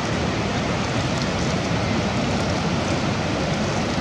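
Steady rush of surf and wind, with light splashing of water as a PVC ghost-shrimp suction pump is worked in the wet sand.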